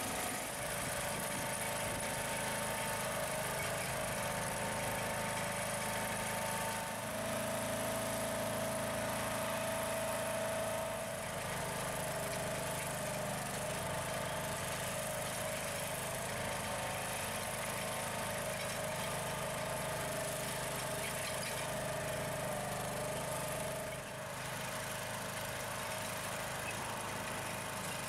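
Walk-behind chain trencher's small gas engine running steadily while its digging chain cuts a trench in dry soil. There is a steady whining tone, a little louder for a few seconds about a quarter of the way in.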